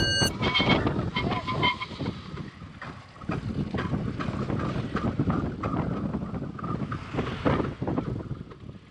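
Loaded touring bicycle rolling fast downhill, with wind and rattling road noise and short high squeals from its disc brakes about one to two seconds in. The brakes are overheated from a long descent and are grabbing and locking the wheel.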